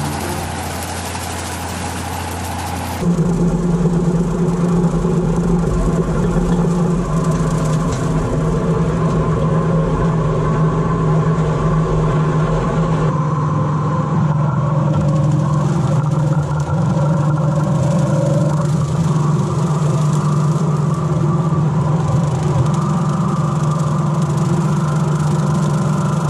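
Compact tractor and its PTO-driven J Bar rotary mower (brush hog) running steadily under load while cutting tall grass, a loud constant engine drone with a low steady hum. Background guitar music fills about the first three seconds before the machine sound cuts in suddenly.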